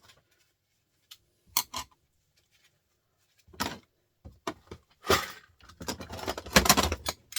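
Metal clinking and rattling as the halves of a small opened printer motor and hand tools are handled: a few separate clinks, then a busier clatter of metal from about five seconds in.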